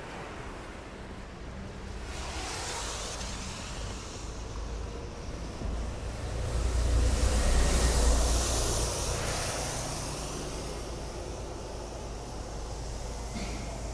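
Street traffic on a city road: a steady rumble of vehicles, with one passing close that swells to the loudest point about halfway through, then fades away.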